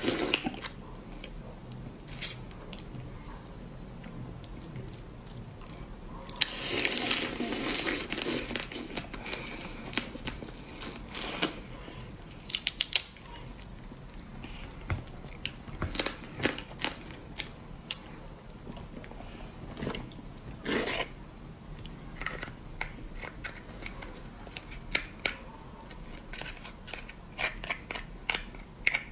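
Close-up eating sounds of raw marinated crab: biting and chewing through the shell, with sharp cracks and crunches scattered throughout and a longer run of dense crunching about a quarter of the way in.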